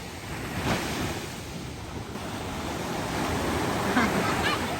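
Ocean surf: big waves breaking and washing in, a steady rushing noise that surges briefly a little under a second in.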